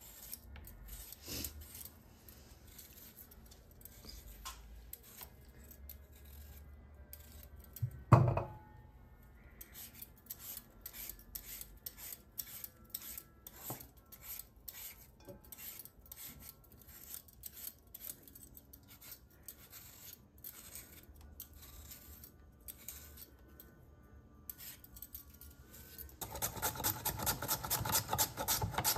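Repeated short rasping scrapes of a vegetable peeler on potatoes, with one loud knock about eight seconds in; near the end the scrapes get louder and come faster.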